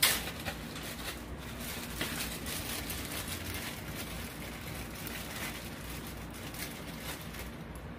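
A sharp click at the start, then a steady hiss with faint crackles from olive oil in a frying pan.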